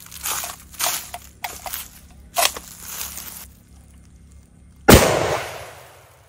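A single rifle shot from a Lee-Enfield No. 4 Mk1 firing .303 British, about five seconds in, the loudest sound here, its echo dying away over more than a second. A few lighter clicks and knocks come before it.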